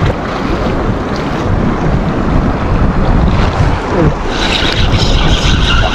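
Wind buffeting the microphone over waves washing against jetty rocks. About four seconds in, a steady whir joins.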